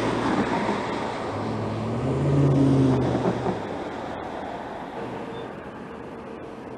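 Road traffic going through an intersection: a motor vehicle passes close with engine and tyre noise, swelling to its loudest two to three seconds in and fading away, followed by quieter steady traffic hum.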